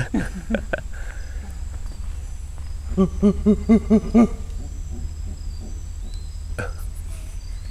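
A man making a run of six short, rhythmic "hoo" calls, about a second long in all, imitating monkey calls at the monkeys in the trees, over a steady high insect buzz.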